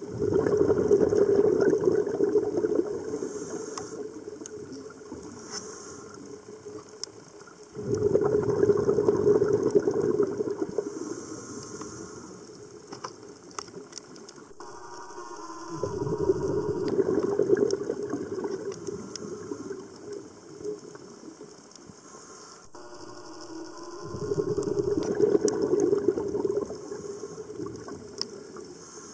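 Scuba diver's exhaled bubbles gurgling out of the regulator, heard underwater: four long bursts about eight seconds apart, in a regular breathing rhythm, with quieter spells between.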